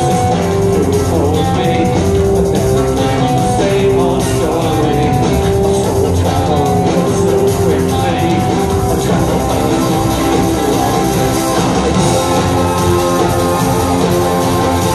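Live rock band playing at full volume: drum kit, electric bass, electric guitars and a lead vocal, heard from within the concert crowd.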